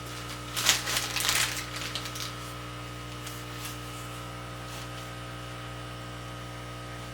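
A couple of seconds of rustling and clicking as packaging is handled, then only a steady electrical hum with a fixed pitch.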